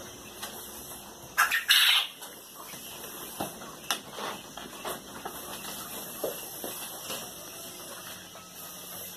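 Handling noise: a brief loud rustle about one and a half seconds in, then faint scattered taps and clicks as things are moved about.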